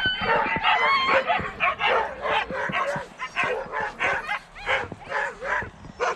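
Several sled dogs barking and yipping together, a dense chorus of overlapping barks several times a second.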